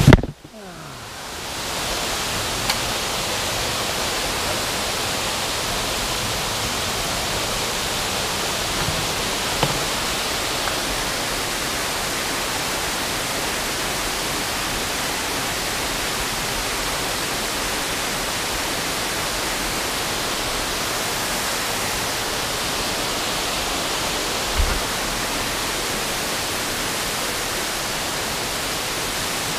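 Steady, even rush of creek water cascading. A sharp knock comes right at the start, after which the rush drops away and swells back within about two seconds.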